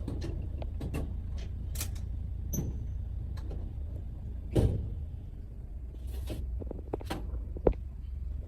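Scattered clicks and knocks over a steady low hum, with a heavier thump about halfway through and a sharp knock near the end.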